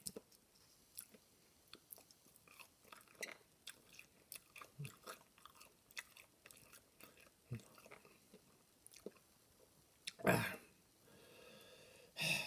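Close-up chewing of breaded chicken nuggets: soft, irregular crunches and mouth clicks, with a short louder burst of noise about ten seconds in and another near the end.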